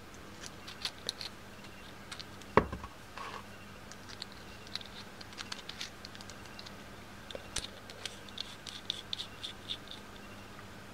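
Small clicks and scrapes of a stainless steel rebuildable atomizer's parts being handled and fitted together, with one sharper knock about two and a half seconds in.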